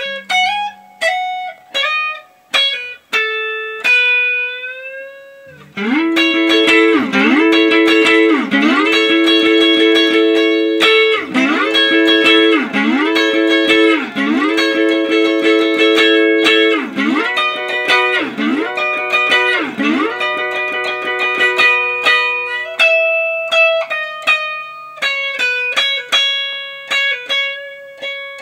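Fender Telecaster electric guitar played solo. The first few seconds are picked single notes with bends. From about six seconds in, loud ringing chords swoop down in pitch and back about every second and a half. Near the end it goes back to single bent notes.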